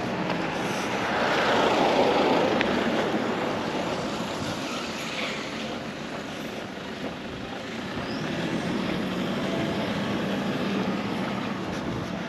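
Engine noise from a passing vehicle that swells to its loudest about two seconds in, then eases to a steady hum.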